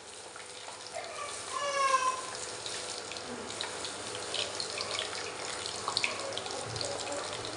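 Mustard oil with black gram and nigella seeds frying in a pan, a steady sizzle with scattered small crackles as the seeds and lentils spit in the hot oil. A short, faint high-pitched call about a second and a half in.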